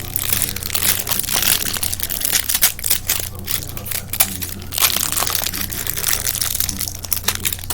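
Plastic packaging crinkling and crackling as it is handled and opened, a dense run of quick irregular crackles.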